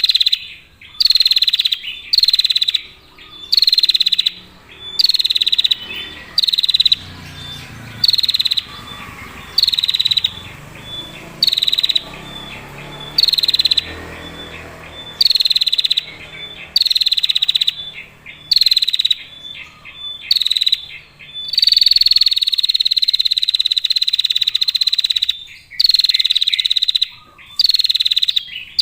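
Female prinia (prenjak) giving its high, buzzy trilling call ('ngetir') over and over, about once a second. Each call opens with a short downward slide. One long unbroken trill of about four seconds comes past the middle.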